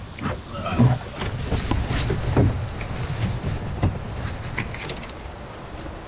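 A canoe being pulled and handled: irregular hollow knocks and scraping over a low rumble of handling noise, with the loudest knocks about a second in and near the middle.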